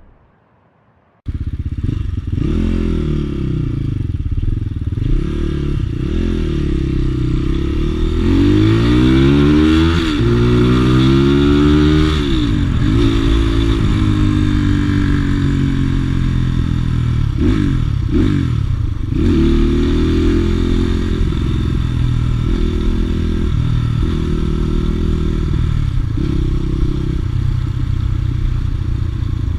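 Crossfire RM250 motorcycle engine running and being revved, setting in suddenly about a second in; its pitch rises and falls again and again, with a long climb in revs about ten seconds in and then a string of shorter, stepped rises.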